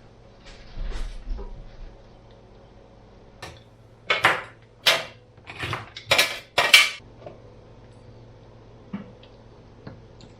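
Kitchen dishes and utensils being handled: a soft rustle, then a quick run of sharp clinks and knocks in the middle, and a couple of lighter taps near the end.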